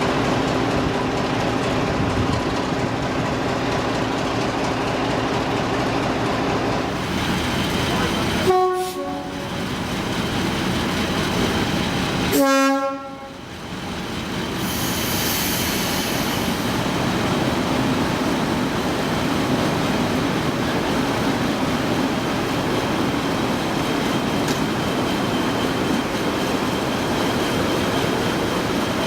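Preserved British Rail diesel locomotive running steadily, with two short horn blasts about four seconds apart, the first higher-pitched than the second.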